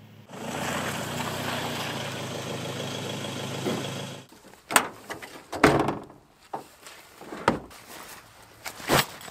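Pickup truck running for about four seconds, engine and tyres on grass, then cut off abruptly. After it come several separate sharp thuds and scuffs, like footsteps on grass.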